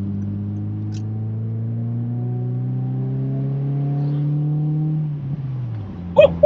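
Honda Civic with a Skunk2 Mega Power cat-back exhaust accelerating, its engine note rising slowly and steadily, heard from inside the cabin. After about five seconds the pitch falls off as the throttle is lifted, and a few sharp exhaust pops crack out near the end.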